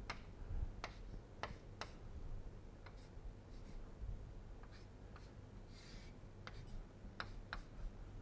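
Chalk on a chalkboard as axis lines and letters are drawn: a faint string of short, sharp taps and strokes, with a longer scratchy stroke about six seconds in.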